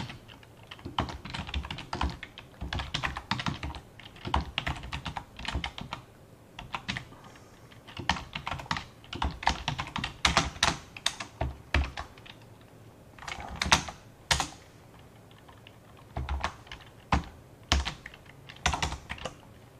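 Typing on a computer keyboard: runs of keystrokes with a couple of short pauses.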